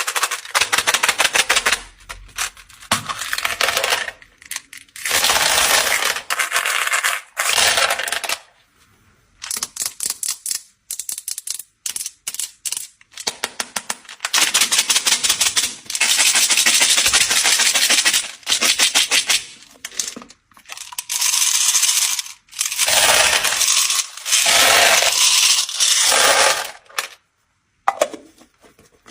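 Many small hard candies, such as M&M's, clattering and rattling against one another and a hard surface in dense runs of rapid clicks, several pours a few seconds long with short pauses between them.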